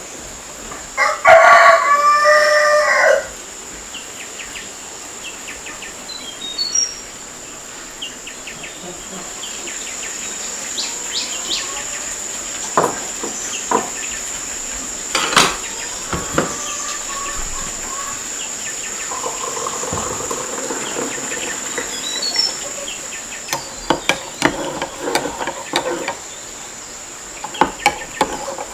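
A rooster crows once about a second in, one long call, over a steady high drone of insects. Scattered light clicks and knocks and a few small bird chirps follow.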